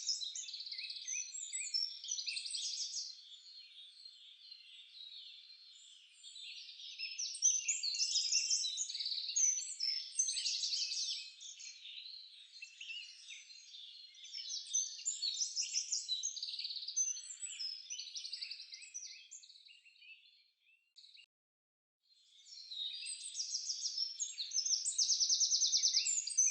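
A dense chorus of many small birds chirping and trilling, all high-pitched, with overlapping fast trills. It cuts out for about a second roughly three quarters of the way through, then comes back.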